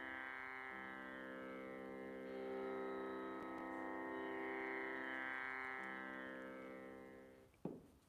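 Soft Indian-style drone music: a held chord of steady tones that shifts twice, then fades out about seven and a half seconds in, followed by a brief click.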